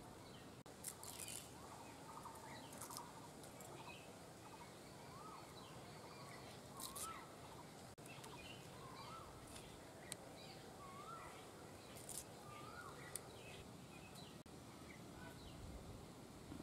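Faint outdoor ambience with a bird giving a short rising-and-falling call about once a second for several seconds. A few faint, crisp snaps come from jute leaves being picked off their stems by hand.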